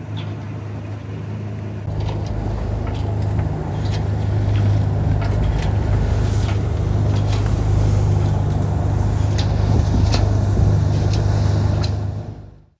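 Small auxiliary engine of a sailboat running steadily under way: a constant low hum, with wind and water rushing over it. It grows louder about two seconds in and again about four seconds in, then fades out near the end.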